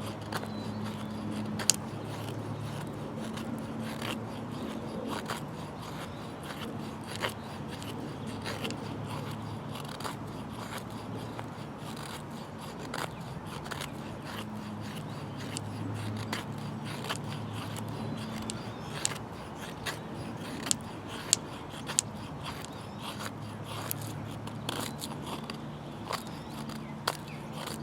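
Small folding saw blade of a Swiss Army Farmer knife cutting wood with light strokes: scraping with many irregular sharp clicks and snaps, over a low steady hum.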